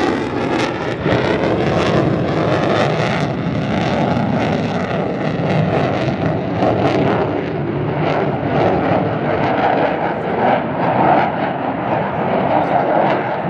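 Loud jet noise from the single Pratt & Whitney F135 afterburning turbofan of an F-35 Lightning II fighter in flight, a steady rumble with a sharp crackle on top. The crackle dies away after about three seconds, leaving a duller steady rumble.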